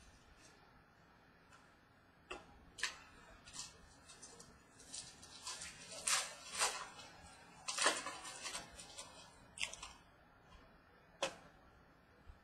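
Trading cards and foil pack wrappers being handled: scattered soft clicks and brief rustling, busiest in the middle.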